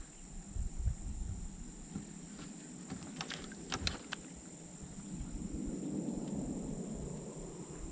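Crickets chirring as a steady high-pitched drone, with a few sharp clicks about three to four seconds in.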